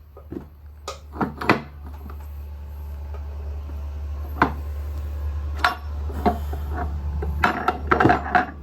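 Metal clanks and knocks of transmission parts as a shaft and its gears are worked out of a Warner T9 gearbox case: scattered strikes, with a quick cluster near the end, over a steady low hum.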